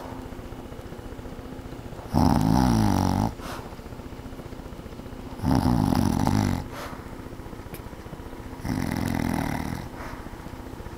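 A woman snoring in her sleep: three rough snores, each about a second long and about three seconds apart, with a faint steady hum underneath.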